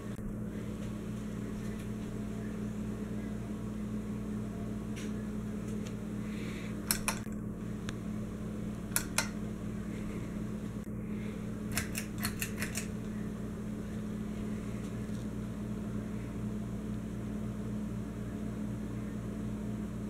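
Encon Casanova ceiling fan running with a steady motor hum. The pull-chain switch clicks twice about a third of the way in, twice again a couple of seconds later, and then in a quick run of about five clicks just past the middle.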